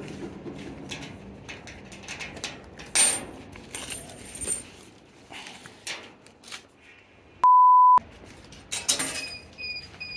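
A single half-second censor bleep, a pure steady 1 kHz tone, about seven and a half seconds in, with all other sound cut out while it sounds. Scattered faint clicks and knocks fill the rest.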